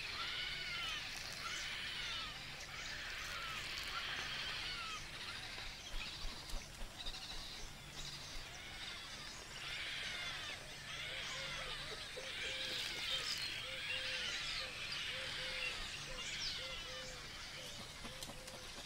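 Painted stork chicks begging at the nest as a parent feeds them water: many rapid, overlapping, high arching cries. A lower call joins in about ten seconds in, repeating about twice a second.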